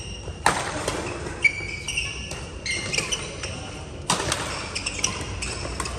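Badminton rally: several sharp racket-on-shuttlecock hits, the loudest about half a second, a second and a half, and four seconds in, with sports shoes squeaking briefly on the court floor in between.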